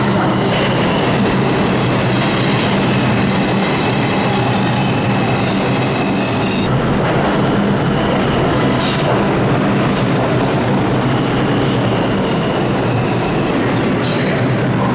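New York City subway train pulling into a station and braking to a stop. A loud steady rumble of the cars on the rails carries a high wheel squeal that is strongest in the first half and comes back faintly later.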